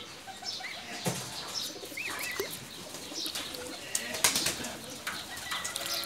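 Waterfowl chicks peeping in short rising-and-falling calls, three in a quick run about two seconds in and a few more later, while they paddle and splash in a shallow metal basin of water, with a sharper splash just past the middle.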